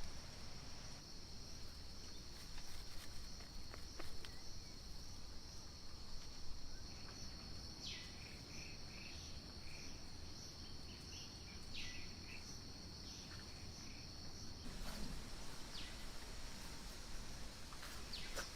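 Steady high-pitched insect chorus that cuts out about fifteen seconds in, with a few short chirps in the middle over a low background rumble.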